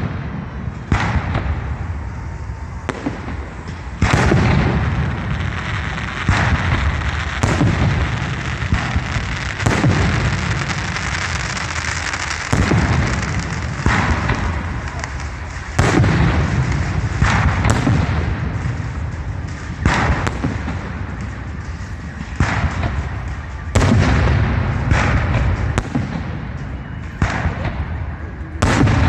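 Fireworks display: aerial shells bursting one after another, a loud bang every second or two over a continuous crackle and rumble of further bursts.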